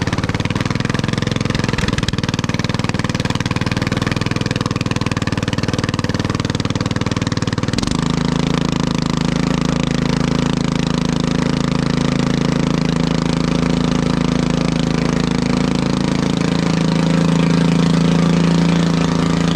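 Lawnmower engine running straight-piped with its muffler removed, very loud. About eight seconds in its speed steps up and then holds steady.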